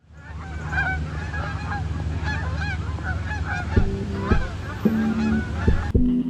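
A flock of Canada geese honking in flight, many overlapping calls. Music with plucked notes comes in about four seconds in.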